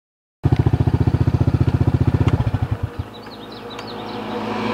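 ATV engine idling close by with a rapid, even chugging beat, dying away about two and a half seconds in. A few faint high chirps follow, like birds, with a slowly rising hiss near the end.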